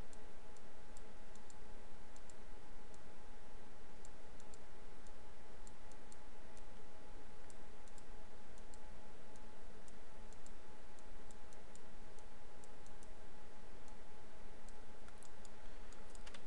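Computer mouse clicking during 3D modeling work: light, irregular clicks a few times a second, bunching together near the end, over a steady recording hiss with a faint steady whine.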